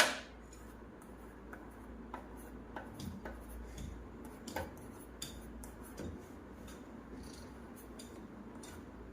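Plastic stylus tapping and scraping on the surface of an LCD writing tablet while it is tested after repair, with a sharp click at the very start and scattered light taps after it.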